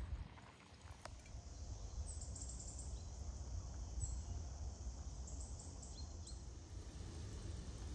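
Outdoor forest ambience: a few short, high bird chirps over a steady low rumble and a faint hiss.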